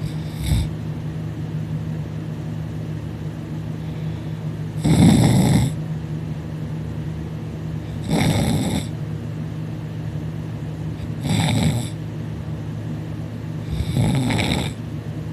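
A man snoring loudly in deep sleep, four heavy snores about three seconds apart, over a steady low hum.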